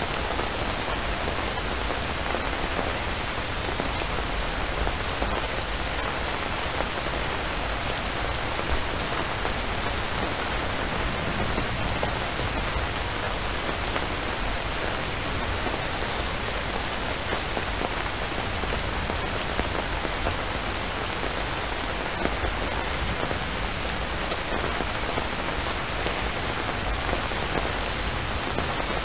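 Steady rainfall: an even, continuous hiss with a few faint drop ticks.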